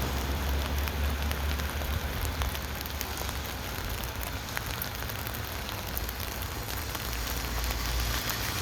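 Rain falling steadily on a tent canopy: an even hiss dotted with many small ticks of single drops, over a low rumble.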